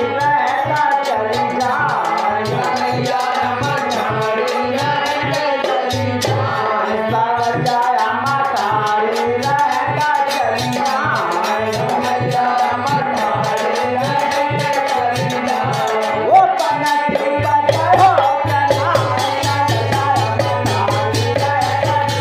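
Instrumental interlude of a Hindi devotional bhajan: a wavering melody over a fast drum beat with dense rattling percussion, and a sustained low note entering near the end.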